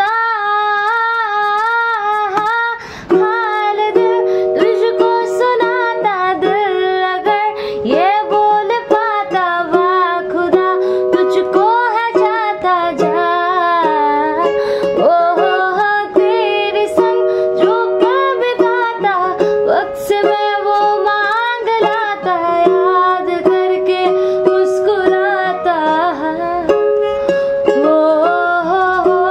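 A woman singing a Hindi film song to her own strummed ukulele, her held notes wavering with vibrato.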